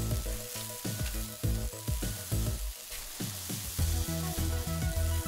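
Kinetic sand squeezed and crumbled by hand, a fine crackling rustle, over light background music with plucked low notes that get stronger about four seconds in.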